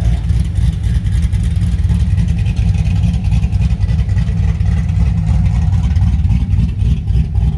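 Classic car engine running at idle with a deep, steady exhaust rumble.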